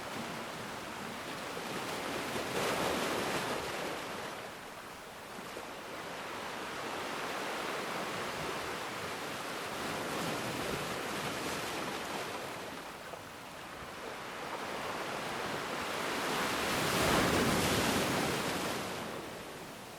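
Ocean waves breaking and washing on a shore, rising to a louder wave about 3 seconds in and again, loudest, about 17 seconds in.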